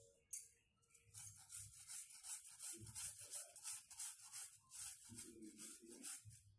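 A block of jaggery being grated on a flat metal hand grater: a quick, even run of faint rasping strokes starting about a second in.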